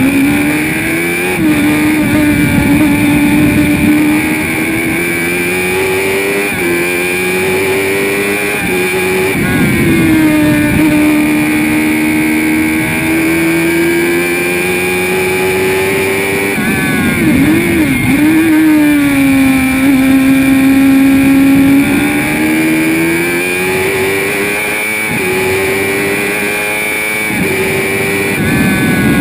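Spire GT3 sports racer's engine at high revs, heard from the open cockpit. The note climbs and steps up or down at gear changes, and drops sharply twice, about ten and seventeen seconds in, with quick blips on downshifts into corners.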